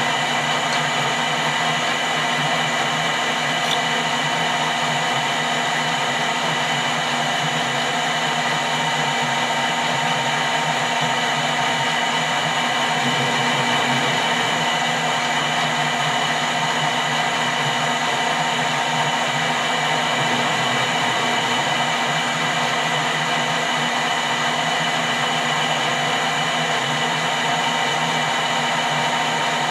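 Metal-turning lathe running steadily, a constant whine made of several steady tones at once.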